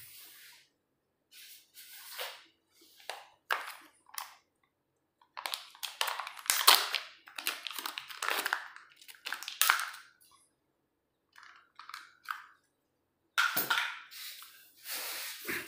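Packaging of a printer print-head cartridge being unwrapped, crinkling and rustling in irregular bursts.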